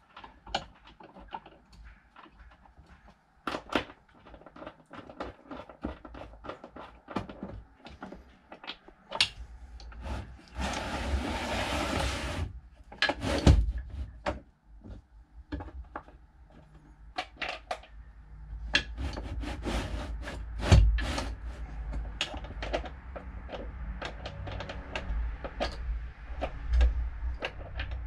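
Hand work fitting nuts to the bolts of a swivel-seat base: scattered clicks and knocks, with a dense rasping burst of about two seconds around ten seconds in. A busier run of clicks and thumps follows in the second half.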